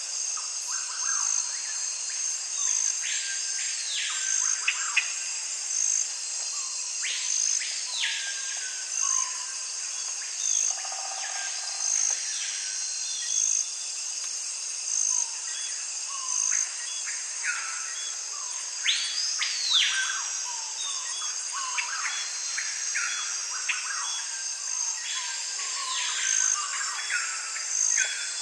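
Birds calling over a steady high insect drone: repeated calls that rise and fall, every couple of seconds, over a continuous buzz with short regular pulses.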